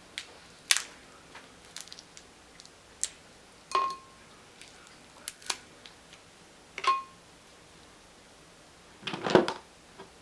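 Steamed crab leg shells being cracked and snapped, a string of sharp separate cracks and clicks, two of them ringing briefly. A denser burst of crunching comes near the end and is the loudest.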